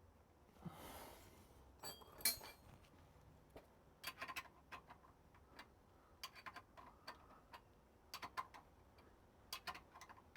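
Faint, irregular metallic clicks and ticks in small clusters, with a short scraping swish about a second in, as a spanner works the 15 mm drain bolt back into the diff.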